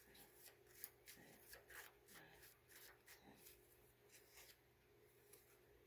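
Tarot cards being shuffled by hand: faint, quick flicks and rustles of the deck that stop about four and a half seconds in.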